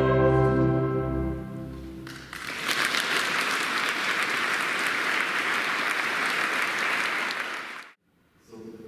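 A choir holding its final chord, which dies away about two seconds in, followed by audience applause that breaks out and runs steadily for about five seconds before cutting off abruptly.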